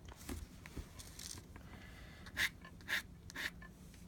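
Fountain pen nib scratching on paper in a series of short drawing strokes, faint, with the last three coming about half a second apart.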